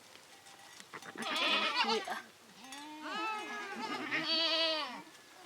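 Goats bleating: one loud, wavering bleat about a second in, then several bleats overlapping from about two and a half seconds on.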